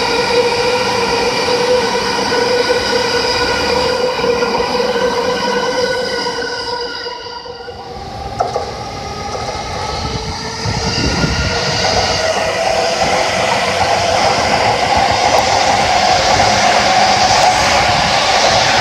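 Yamanote Line commuter train running past a level crossing. A steady pitched tone with many overtones holds for the first seven seconds. After a dip and a click about eight seconds in, a lower tone and rail noise build toward the end as a train passes close by.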